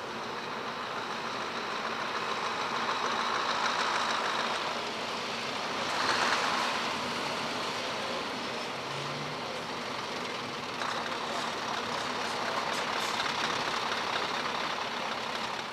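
Scania heavy truck's diesel engine running as the truck drives slowly across a yard, its noise swelling as it comes close and loudest about six seconds in.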